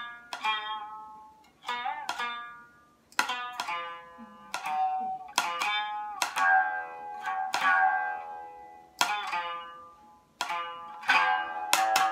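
Biwa (Japanese lute) struck with a large plectrum: single sharp strokes and quick clusters of notes at irregular intervals, each ringing and dying away, with a few notes bent in pitch.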